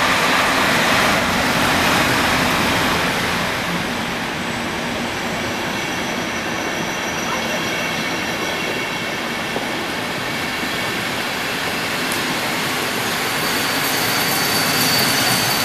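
EP07 electric locomotive and its intercity passenger coaches rolling past along the platform, loudest as the locomotive goes by at the start. Faint high brake squeal comes in as the train slows and grows stronger near the end.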